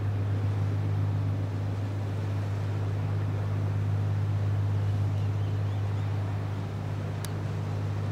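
Steady low drone of a large bulk carrier's engines as the ship passes close by, over a soft hiss. There is a faint tick near the end.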